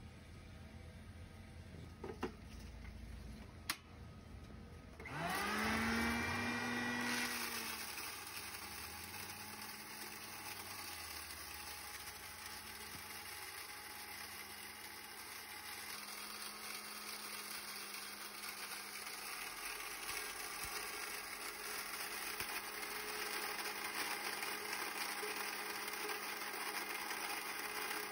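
Two sharp clicks, then about five seconds in the Euromill 25 grain mill's electric motor starts with a rising whine. It settles into a steady whir as the mill grinds feed corn into meal.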